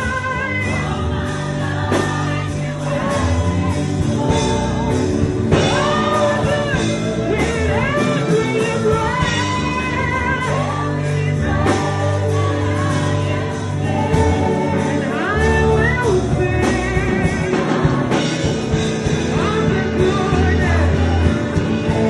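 Gospel worship song: a voice singing long, gliding vocal runs over a band with steady bass notes and drums.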